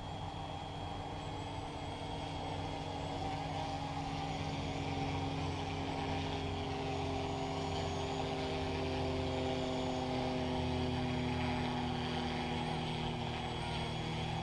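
Electric motor and spinning rotors of a Yu Xiang UH-1 Huey RC model helicopter, with a steady high whine over a hum, as it comes in to land. In the second half its pitch drops gradually as the throttle eases.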